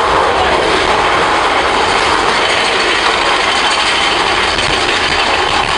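Mine-train roller coaster rattling along its track, with a steady, loud mechanical ratcheting clatter.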